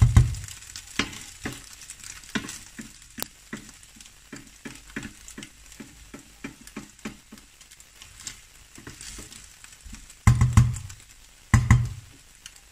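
Diced potatoes and egg frying in a non-stick pan, stirred with a plastic spatula in quick, regular scraping strokes over a light sizzle. A few heavier knocks come at the start and twice near the end.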